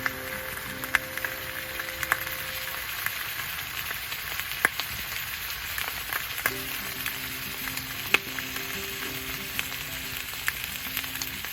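Food sizzling as it fries on a hot grill plate over a campfire, a steady hiss broken by scattered sharp pops of spitting fat.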